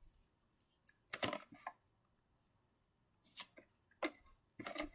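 Cardboard toy box being handled and shifted by hand, giving a few short scrapes and taps: a cluster about a second in and several more near the end.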